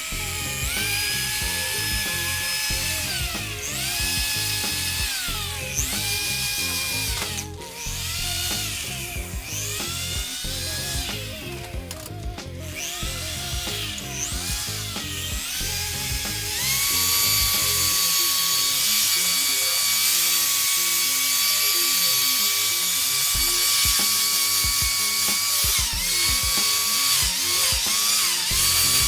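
Electric buffer polishing a plastic headlight lens, its motor whining up and down in short trigger pulses, then running at steady speed for the second half with two brief dips.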